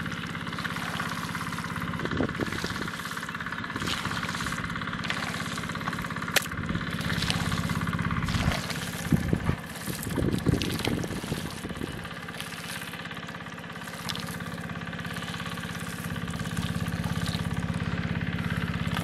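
An engine runs steadily in the background, a continuous drone, while hands dig through wet mud with scattered squelches and knocks, most of them a little past the middle.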